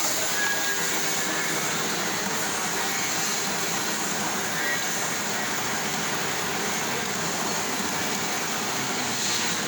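6M76P universal milling machine running, a steady mechanical whirr with a hiss.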